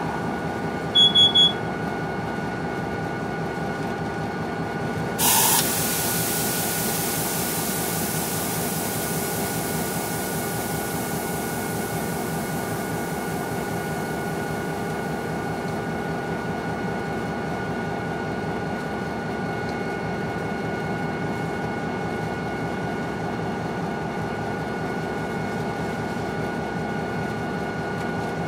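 Long freight train rolling across a bridge: a steady rumble with several ringing tones. About a second in come three short, loud, high beeps, and about five seconds in a sudden hiss starts and fades away over about ten seconds.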